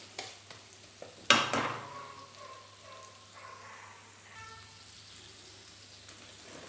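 Sliced onions and green chillies sizzling gently in mustard oil in a metal kadai, with one sharp knock of the wooden spatula against the pan a little over a second in.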